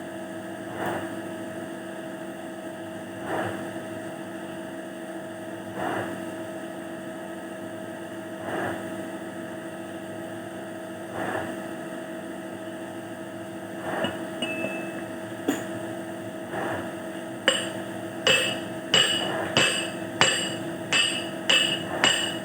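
Hammer striking metal, over a steady hum. First come slow single taps about every two and a half seconds. From about three-quarters of the way through, a quicker run of ringing strikes follows, roughly one and a half a second.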